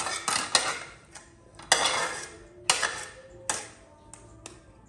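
Metal spatula clanking and scraping against a steel wok as fried noodles are scooped out: a quick run of strikes at the start, a longer scrape about two seconds in, then single clanks and lighter taps toward the end.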